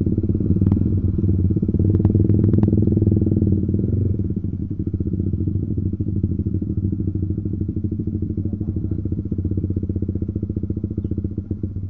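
Honda CBR150R's single-cylinder four-stroke engine running under the rider as the motorcycle rolls slowly. It eases off about four seconds in and settles to a lower, steady beat. A few sharp clicks come about two seconds in.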